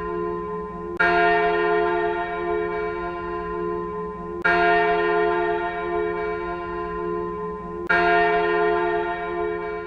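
A single church bell tolling noon, struck three times about three and a half seconds apart. Each stroke rings on and slowly fades, with a low hum under it, until the next stroke.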